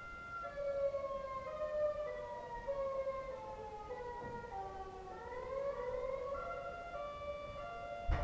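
3T22A siren sounding, one of its tone patterns: a stepped pitch that falls over about four seconds, climbs back up, then settles into steady alternating tones. A thump right at the end.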